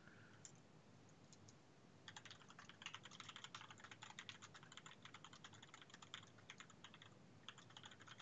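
Faint rapid typing on a computer keyboard, a quick run of keystrokes that starts about two seconds in.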